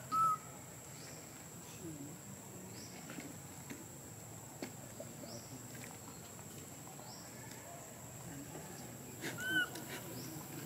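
Monkey giving short arched coo calls, one right at the start and another about nine and a half seconds in, over a faint steady high-pitched whine.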